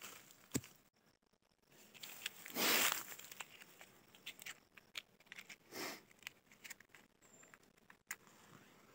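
Small handling sounds of laying a fire: a blade scraping soil, dry sticks and paper rustling, and a matchbox being worked. There are two short scratchy hisses, the louder one about three seconds in and a weaker one near six seconds.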